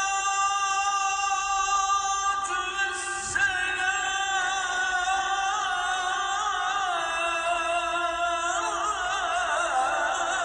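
A man chanting the Friday sela, the Islamic call sung before Friday prayer, in long held notes. Near the end the voice breaks into quick wavering ornamental turns.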